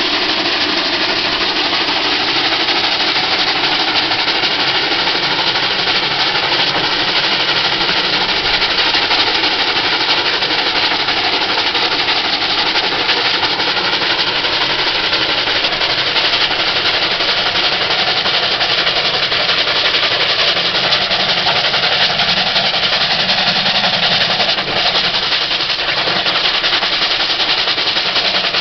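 South African Railways Class 19D two-cylinder steam locomotive hauling five coaches and working hard, its exhaust beating rapidly and steadily under a loud, continuous rush of noise.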